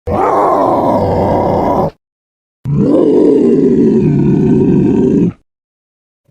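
Two monster roar sound effects: a roar of about two seconds, then, after a short gap of silence, a longer roar of nearly three seconds.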